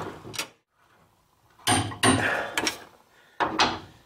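Large torque wrench and socket clanking and clicking on the front control arm bushing bolts as they are tightened to 184 foot-pounds. There are about five separate sharp knocks, the loudest about two seconds in.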